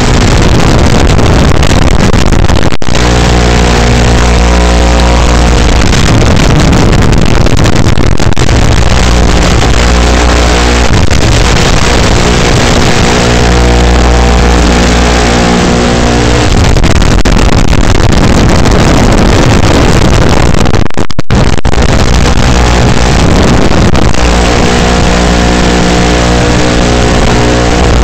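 Motors and propellers of a 3-inch FPV quadcopter buzzing loud and distorted through the onboard DVR microphone. The whine holds a steady pitch for a few seconds at a time, then shifts as the throttle changes. The recording cuts out for a moment about three-quarters of the way through.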